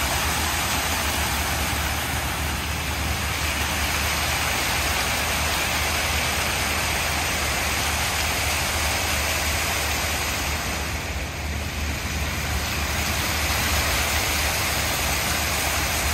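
Ground fountain with many water jets splashing steadily onto wet paving, an even rushing hiss, with a low rumble underneath.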